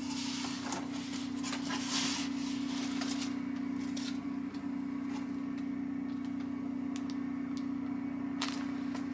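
Cardboard box flaps and packaging rustling as a box is opened and its contents handled, mostly in the first three seconds, with a short crinkle near the end, over a steady low hum.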